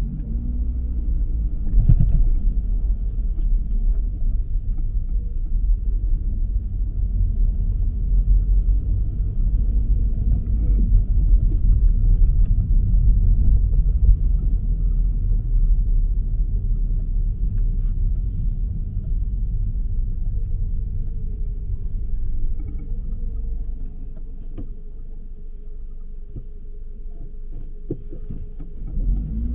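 Low road and engine rumble of a car being driven, dipping quieter for a few seconds near the end.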